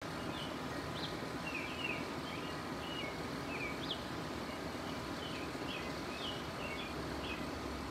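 Small birds chirping, a string of short, quick notes about two a second, over a steady low background rumble.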